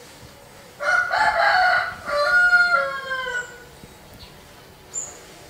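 A rooster crowing once, a long two-part call whose last note falls away.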